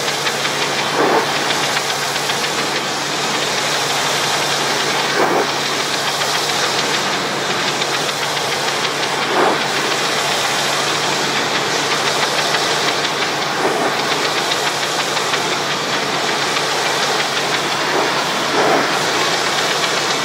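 Pressure washer running: a steady hiss of high-pressure water spray over a constant engine hum, with a brief louder burst about every four seconds.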